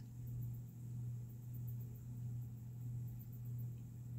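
Faint, steady low hum of room tone with no speech.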